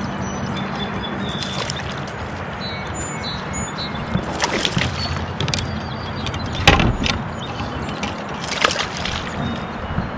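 Steady rush of moving creek water around a kayak, with a few sudden louder splashes, the loudest about six and a half seconds in, and small high chirps over the top.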